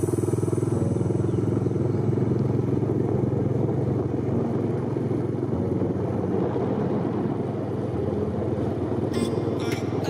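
Small motorcycle engine running steadily under way. A quick run of sharp clicks starts near the end.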